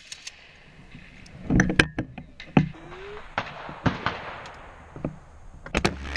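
Gunfire: several sharp cracks of differing loudness, at irregular spacing, some in quick pairs.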